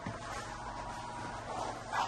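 Hex key working a bolt on an electric scooter's rear suspension link, with a few small metal clicks over a steady low hum. The sharpest click comes near the end.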